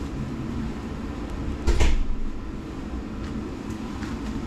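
Gloved hands bending a kinked length of red PEX-B tubing back and forth to fatigue it at the kink. One short, sharp crack comes about two seconds in and a few faint ticks follow, over a steady low rumble.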